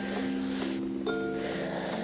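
Music: held notes that change pitch every half second or so, over a steady hiss.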